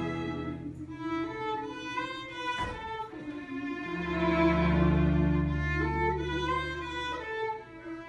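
String ensemble of violins, cello and double bass playing a piece with long held notes. Low bass notes come in about halfway through under the violin melody.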